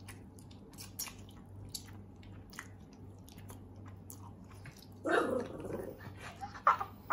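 A man eating spicy instant noodles fast: faint clicks and chewing. About five seconds in comes a louder, longer noisy sound, and a short sharp one follows near the end.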